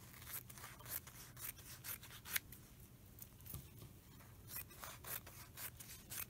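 Scissors snipping through shiny brocade fabric, mixed with the rustle of the fabric being handled and laid down: a faint run of soft, irregular short snips and swishes.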